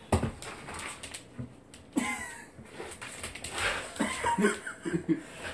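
Miniature long-haired dachshund giving short, high whines, about 2 s in and again towards the end, while it works at getting its toy out of a plastic laundry basket. There is a sharp knock right at the start.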